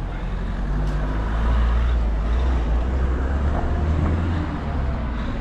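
A motor vehicle passing close by on the street, its low engine rumble swelling about a second and a half in and fading near the end.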